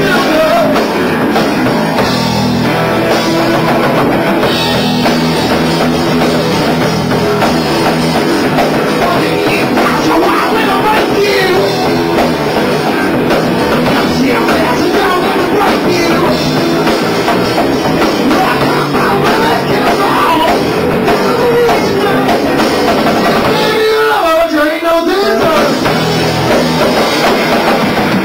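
Live rock band playing loud: electric guitar, bass guitar and drum kit, with a singer. The low end drops out for about a second near the end.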